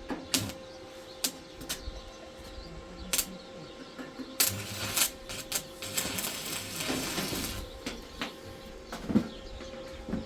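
Scattered clinks and knocks of dishes and glasses being handled, with a faint steady hum underneath.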